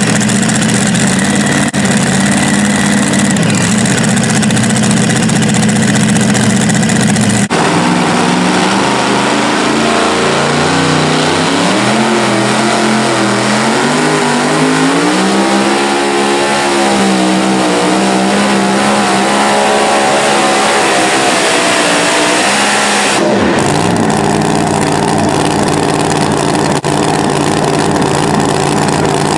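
Supercharged engines of super modified two-wheel-drive pulling trucks running hard at full throttle under the load of the pulling sled. After a cut about seven seconds in, a second truck's engine revs climb steadily and then ease off and hold as it pulls down the track. After another cut near the end it runs steadily at a lower pitch once its pull is over.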